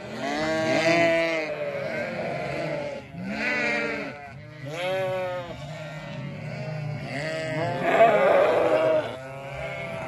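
A flock of sheep bleating, many calls overlapping one after another, loudest about eight seconds in.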